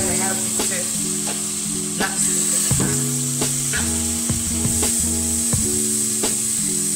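Beef pieces sizzling as they fry in hot olive oil in a stainless steel pot, a steady hiss. Sharp clinks of a metal fork against the pot come several times as the pieces are turned.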